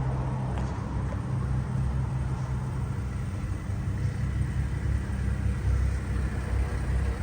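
BMW F10 535i's N55 turbocharged inline-six running steadily, freshly rebuilt with new timing chains.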